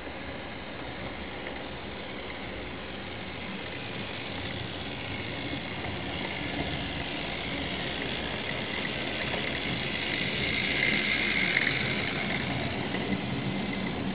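Model WD steam locomotive and its goods vans running on the layout's track: a rolling rumble and motor whine that grows louder as the train approaches and is loudest as the locomotive passes, about two-thirds of the way through.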